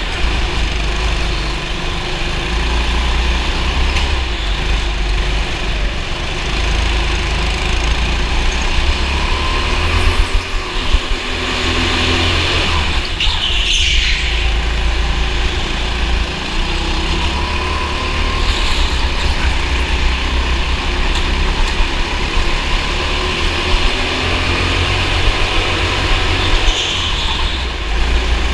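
Go-kart engine running through a race, heard from on board, with a heavy low rumble.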